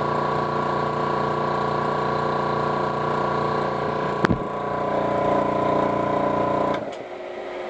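Air Venturi 4500 PSI high-pressure air compressor running with a steady, rhythmic pulse over its cooling fan, sounding like a typical construction site compressor though not quite as loud. A sharp click comes about four seconds in, and near the end the compressor shuts off abruptly, leaving only the cooling fan running.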